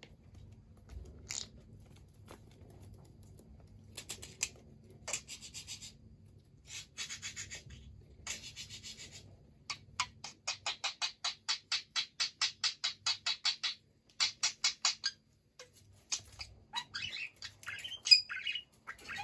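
Budgerigar chattering: scattered bursts of rapid clicking, then a steady run of clicks at about eight a second for several seconds, then warbling chirps near the end.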